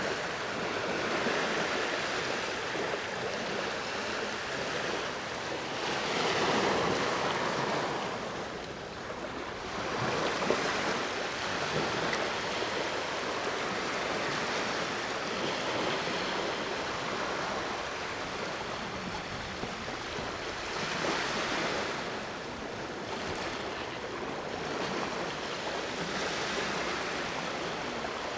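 Sea waves breaking and washing on the shore, a continuous rush that swells louder every several seconds as each wave comes in.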